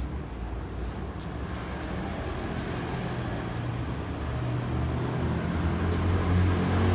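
City street traffic, with a motor vehicle's engine hum growing steadily louder toward the end as it comes closer.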